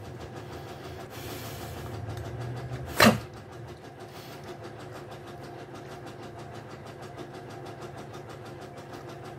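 A steady, faint machine-like noise with a rapid, even rhythm runs throughout. A single sharp knock comes about three seconds in.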